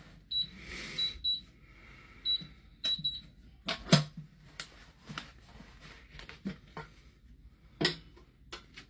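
Electronic keypad safe: about seven short high beeps as keys are pressed, then a series of sharp clicks and knocks from the safe's door and latch, the loudest about four seconds in.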